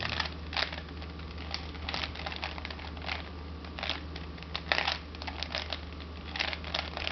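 Rubik's cube being twisted quickly by hand: a fast, irregular run of plastic clicks and clacks as the layers turn, ending as the cube is solved.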